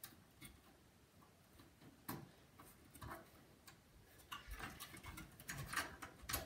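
Faint clicks and rattles of computer cables and plastic connectors being handled and readjusted, sparse at first and coming thicker from about four seconds in.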